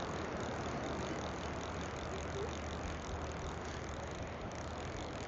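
Steady wash of surf and wind noise, with a faint, rapid, even ticking running through it.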